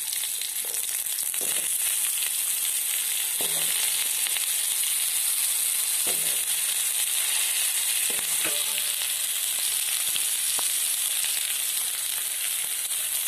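Raw potato wedges sizzling steadily in hot oil in a kadai, with a few faint knocks.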